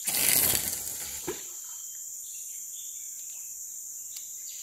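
A fishing rod being cast: a noisy whoosh of about a second as the rod swings and the line runs out, ending in a short knock. Under it, a steady high drone of insects in the forest.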